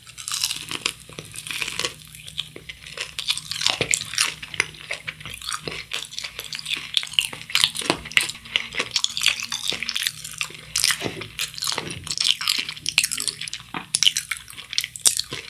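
Close-miked crunchy chewing of a breaded, fried long cheese stick: a bite into the crust right at the start, then a long run of small crisp crackles as it is chewed.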